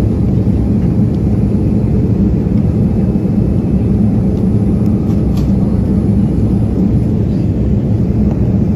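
Steady cabin noise of a Boeing 787-9 airliner in cruise, heard from inside the cabin at a window seat: an even low rumble of airflow and engines.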